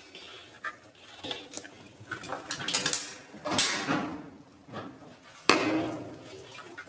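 Irregular knocks, clatter and rustling of hands working at an open top-loading washing machine, the loudest a sharp knock about five and a half seconds in.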